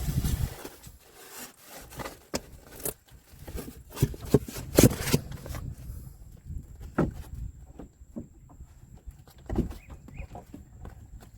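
Irregular knocks, clicks and rubbing from handling fishing gear and a freshly landed fish, the loudest knocks about halfway through. A faint, steady high whine joins about halfway.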